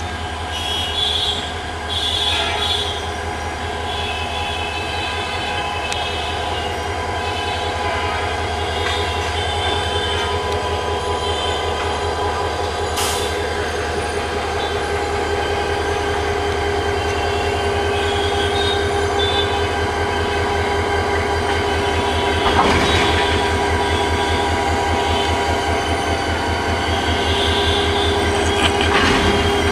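Diesel locomotive creeping forward at low speed, its engine running with a steady low pulsing rumble that grows slowly louder as it comes closer. Steady squealing tones from the wheels on the curved track run over it, and there are a few sharp clanks, one about halfway through and two more near the end.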